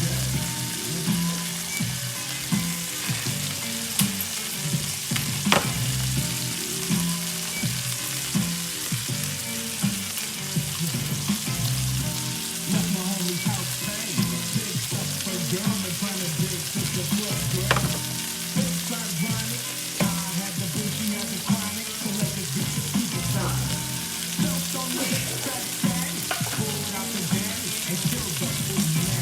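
String beans frying and sizzling in a pan, with a few sharp clicks along the way.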